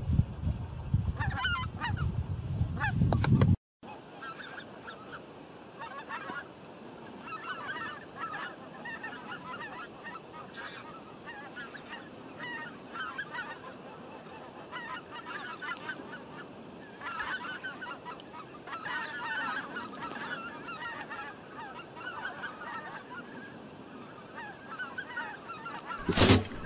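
A flock of wild geese honking in flight, many overlapping calls. A low rumble sits under the calls for the first few seconds. Near the end a run of loud, sharp knocks begins.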